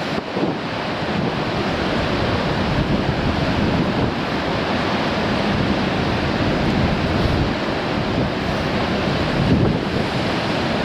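Sea surf breaking and washing over coastal rocks, a continuous rushing roar, with strong wind buffeting the microphone.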